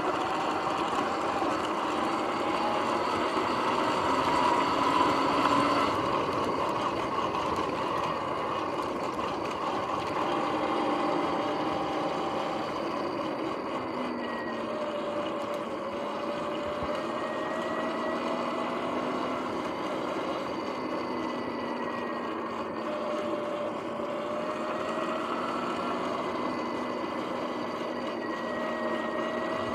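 Sur-Ron X electric dirt bike under way: a steady motor and drivetrain whine that drifts up and down in pitch with speed, over tyre and wind noise. The bike's bearings are noisy.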